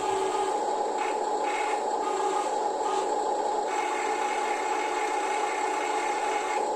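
Small electric motors of Huina radio-controlled construction models whining steadily, with a noisy haze over them and a higher tone that cuts in and out several times as the controls change.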